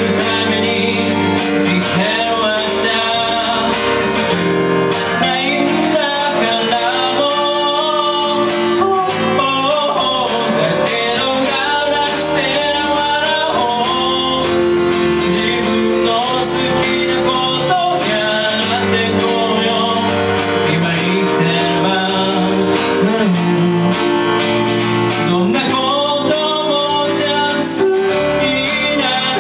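Live acoustic song: a man singing with strummed acoustic guitar and a Yamaha electronic keyboard accompanying.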